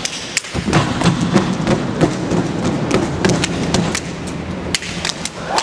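A step team stepping in unison: sharp stomps, claps and body slaps in a quick, uneven rhythm of hits.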